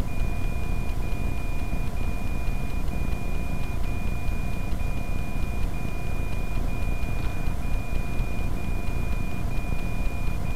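Steady low rumble of a stopped vehicle's engine idling, with a high electronic tone sounding almost continuously, broken by a short gap about once a second.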